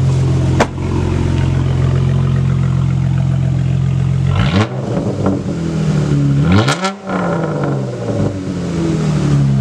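Dodge Challenger SXT Plus 3.6-litre V6, fitted with a new cold air intake, running steadily, then revved twice: the pitch climbs sharply and falls back about halfway through and again a couple of seconds later.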